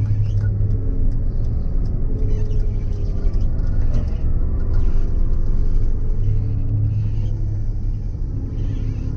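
Big farm machine's diesel engine running steadily, heard from inside the cab as a loud, even low drone and rumble.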